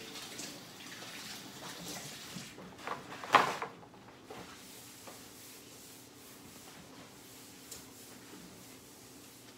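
Kitchen work sounds: a few light knocks, then one sharp clack about three and a half seconds in, like an item set down hard on the counter. A low steady room hum follows.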